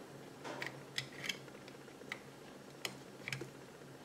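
Small scattered clicks and taps of 3D-printed plastic parts being handled: a plastic gear knocking against the shaft and plastic transmission housing as it is fitted. The clicks come irregularly, about seven of them, over a faint steady hum.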